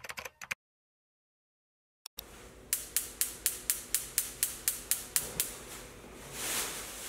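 Gas cooktop's spark igniter ticking about four times a second as the burner knob is turned, followed by a rising hiss as the burner catches.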